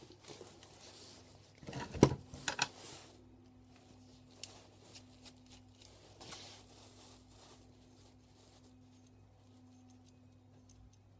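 Small handling sounds of a plastic mains plug and its small steel screws being worked by hand. One sharp knock comes about two seconds in and a few light clicks follow, then it goes mostly quiet over a steady low hum.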